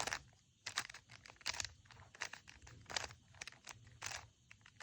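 Rubik's cube layers being turned through a move sequence: a string of short plastic clicks and scrapes at an uneven pace.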